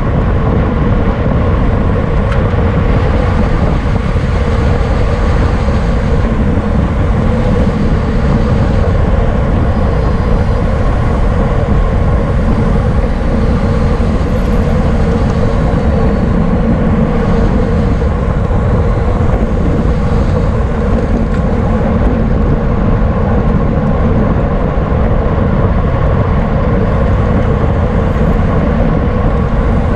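Steady wind rush over the microphone mixed with road and tyre noise from a racing bicycle at speed, unbroken and loud, with a constant hum underneath.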